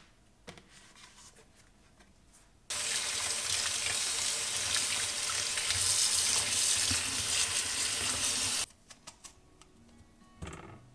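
Kitchen tap running onto strawberries in a colander in the sink as a hand rubs them clean, starting about a quarter of the way in and cutting off suddenly. Before and after it, light taps and a short knock of the berries and colander being handled.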